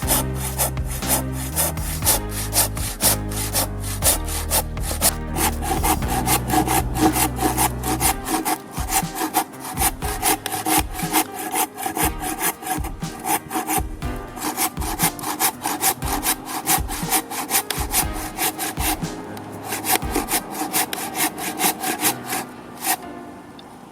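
Hand saw cutting wood in quick, even back-and-forth strokes, about three a second, stopping just before the end.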